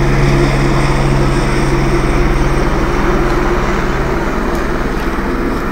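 Loud, steady engine drone with a constant low hum, easing off a little near the end.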